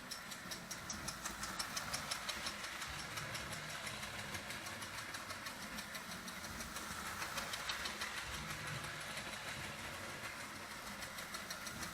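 Marx O27 toy steam locomotive running on track, its electric motor humming under a fast, even mechanical clicking from the chug-chug sound unit and wheels.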